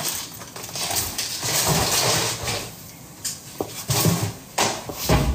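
Kitchen handling noises: rustling, with several sharp knocks and clicks in the second half.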